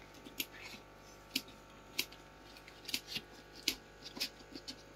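Light, sharp clicks and snips at an uneven pace, about two a second, from hand work on the roof of a small handmade house, over a faint steady hum.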